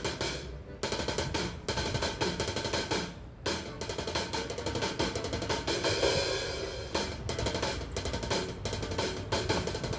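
Acoustic drum kit being played in a soundcheck: snare, bass drum, hi-hat and cymbals in a steady groove. There is a short break about three seconds in, and the cymbals ring out in a wash around the middle.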